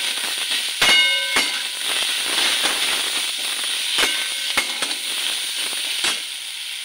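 Cabbage and long beans sizzling in hot oil in a metal kadai while a metal spatula stirs them, clanking and ringing against the pan about five times, loudest about a second in.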